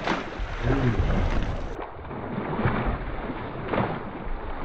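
Wind buffeting the microphone and the low rumble of a small fishing boat on the water, with a few brief muffled voice sounds.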